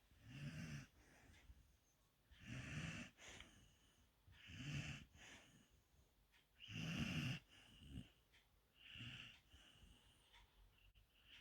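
Golden retriever puppy snoring in his sleep: a raspy snoring breath about every two seconds, the loudest about seven seconds in.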